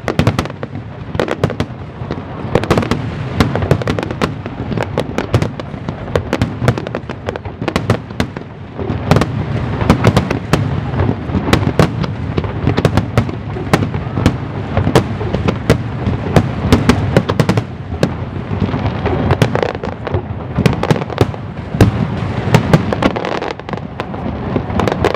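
Aerial firework shells bursting in rapid succession: a dense barrage of overlapping bangs over a constant low rumble, with no let-up.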